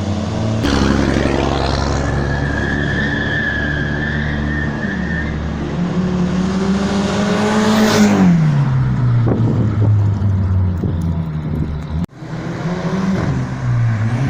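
Turbocharged Audi engine running with the exhaust removed, being revved: the revs climb over several seconds to a peak about eight seconds in, then fall back. A high steady whistle sits over the engine for a few seconds during the climb, and a burst of hiss comes as the revs start to drop.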